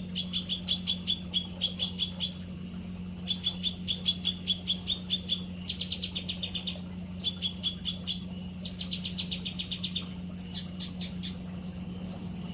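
A songbird giving bouts of rapid chattering trills, each a quick string of sharp notes lasting one to two seconds, with short pauses between, over a steady low hum.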